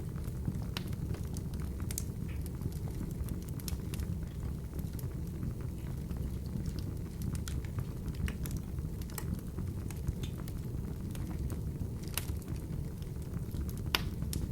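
Wood fire burning in an open fireplace: a steady low rumble of flames with frequent sharp crackles and pops, a few louder snaps about 2 s, 12 s and 14 s in.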